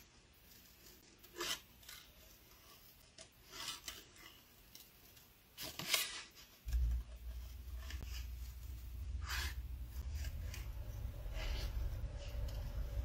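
Small scissors snipping through cardstock in short, scattered cuts while fussy cutting around a scalloped oval and flower. About halfway through, a steady low rumble starts and continues.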